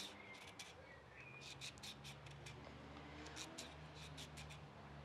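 Hand vegetable peeler scraping down a carrot: faint, quick, short scrapes in irregular runs of two to four strokes.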